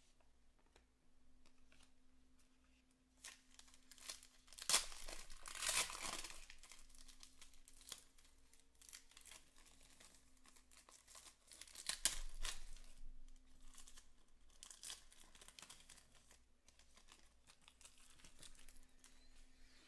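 Foil wrapper of a trading card pack being torn open and crinkled by hand, in irregular crackles with the loudest rips about five seconds in and again about twelve seconds in.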